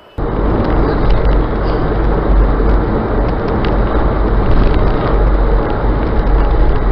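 A car driving at speed, heard from inside the cabin: a steady, loud rumble of engine, tyres and wind on the road, cutting in suddenly just after the start.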